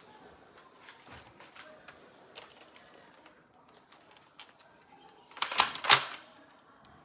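Plastic toy gun parts clicking and snapping as they are handled, with scattered light clicks and then a quick run of several louder snaps about five and a half seconds in.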